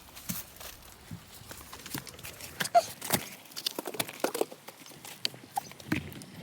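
Footsteps of people walking a forest trail: irregular knocks and crunches, several close together around the middle.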